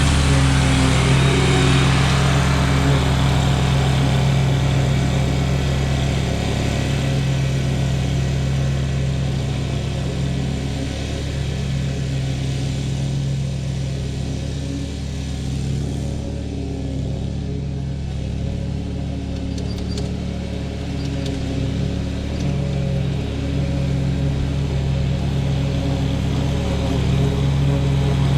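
Riding lawn mower engine running steadily at constant throttle, its pitch holding even, a little quieter through the middle.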